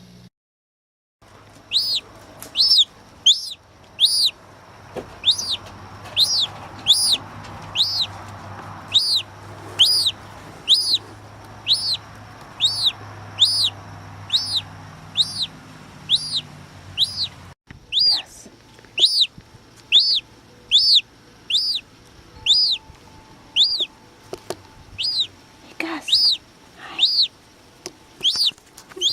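Gull chick peeping over and over, each peep a short high note that rises and falls, about one to two a second. The peeps are broken by a brief silence near the start and a short break about two-thirds of the way through.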